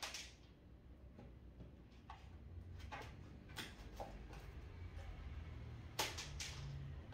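Faint scattered clicks and light knocks from a dog moving in and out of a plastic pet carrier on a tiled floor, with a sharper quick cluster of clicks about six seconds in, over a low steady hum.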